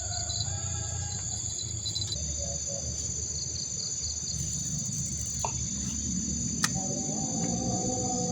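Insects trilling steadily in high-pitched, pulsing tones over a low rushing noise, with one sharp click about two-thirds of the way through.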